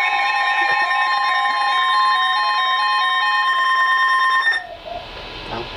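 Emergency alert attention tone: a loud steady high tone layered with a lower two-note tone that alternates back and forth. All of it cuts off abruptly about four and a half seconds in, leaving a low hiss.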